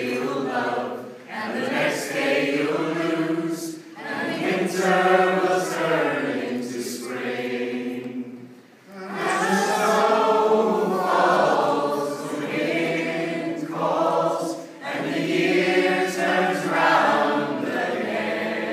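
A large group of men's and women's voices singing together in chorus, in sung phrases of a few seconds with short pauses between them.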